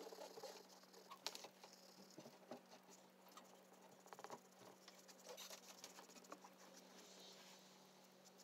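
Faint scratching and light tapping of an oil pastel stick stroked over drawing paper, with a low steady hum underneath.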